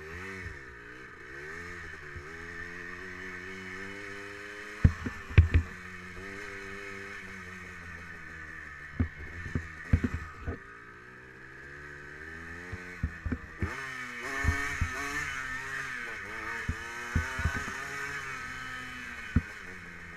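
Yamaha Blaster 200 quad's two-stroke single-cylinder engine revving up and down while riding, the pitch rising and falling with the throttle. Sharp knocks and jolts cut in, a cluster about five seconds in and several more later on.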